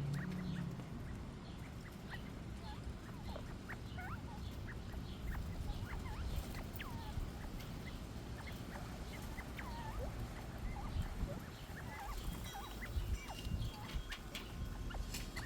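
Young northern bobwhite quail giving many short, scattered peeping calls that glide up and down, over a steady low rumble of wind on the microphone.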